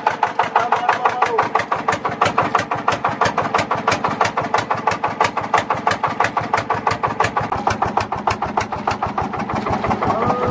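Small motorboat's engine idling with a quick, even putting beat.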